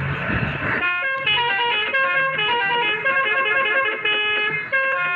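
Music with a quick melody of clean, plucked-sounding notes, starting about a second in over a haze of engine and road noise.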